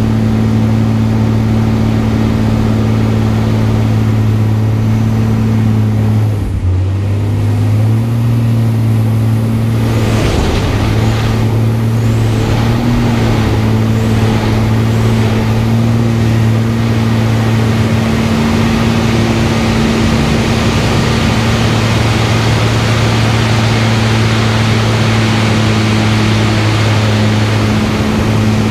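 Single-engine aerobatic plane's piston engine and propeller running steadily, heard from inside the cockpit. About six seconds in the engine note dips briefly and then returns, and a rushing noise swells and fades several times a little later.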